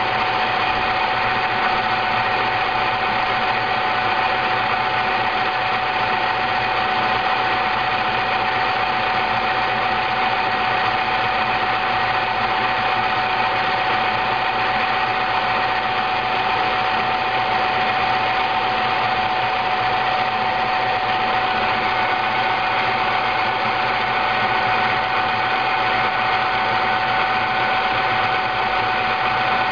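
Froth Au Lait automatic milk frother running, its motor whirring steadily at an even pitch with one clear high tone on top.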